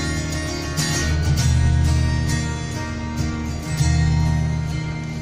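Song intro without vocals: strummed acoustic guitar over steady bass notes, with a regular beat.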